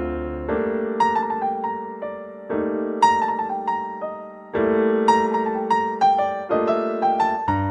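Slow, gentle piano music: held chords that change about every two seconds, with single melody notes struck and fading above them.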